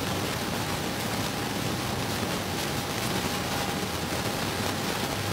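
Steady even hiss with a faint, thin, steady high tone running through it, and no voice.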